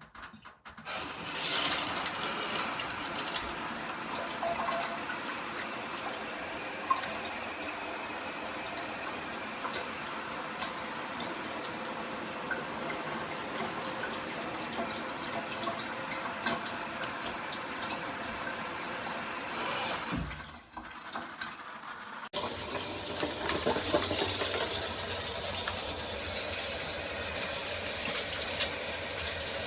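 Water spraying steadily from a shower head. About 20 seconds in it drops away briefly, then returns louder.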